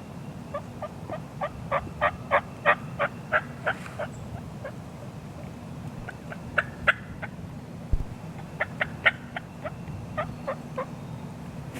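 Wild turkey calling: two long runs of short, evenly spaced yelping notes, about three a second, each run building in loudness and then tapering off.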